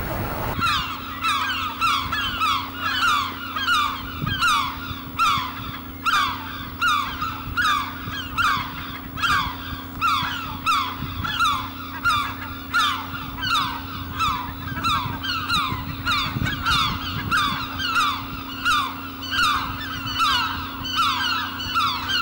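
A flock of geese honking over and over, about two to three short falling calls a second, with a steady low hum underneath.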